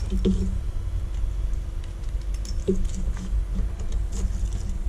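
Light clicks and taps of small parts and cables being handled on a workbench, a few seconds apart, over a low steady rumble and faint hum.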